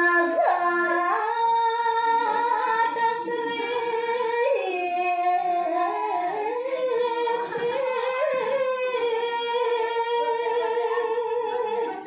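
A woman singing a Javanese sinom tembang unaccompanied, in long held notes that step between pitches with slow, ornamented turns.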